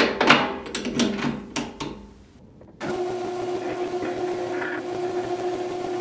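A chrome socket clinks several times against the steel jaws of a lathe chuck, sharp metallic taps with a little ring. After a short pause a metal lathe is running with a steady hum.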